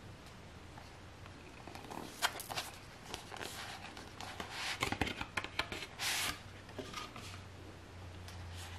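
Cardboard Blu-ray packaging handled by hand: rustling, scraping and small taps as it is turned over and its parts pulled apart. The handling is busiest in the middle, with a brief sliding swish about six seconds in.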